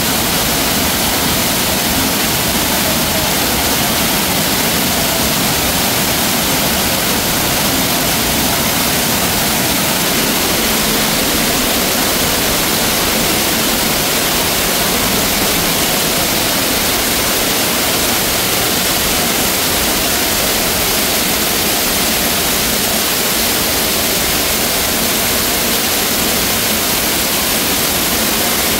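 Loud, steady rush of falling water from a water-park waterfall, unbroken throughout.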